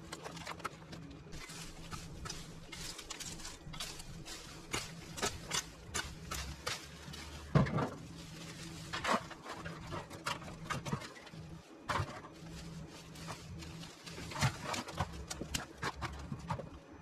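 Irregular rustling and snapping of pulled weeds and plant stems, with scattered sharp knocks and clatters as debris is handled and pushed into a galvanised metal bin; the loudest knock comes about seven and a half seconds in.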